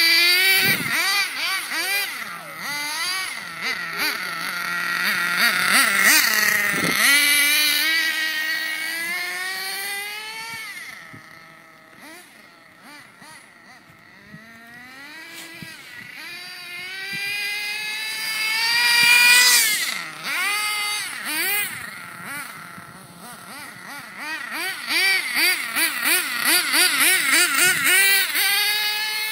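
Redcat Aftershock 3.5 RC truck's small carbureted nitro engine revving up and down as it is driven, its pitch rising and falling with the throttle. It fades in the middle as the truck runs far off, is loudest about two-thirds through, and near the end the pitch wobbles quickly with short throttle blips.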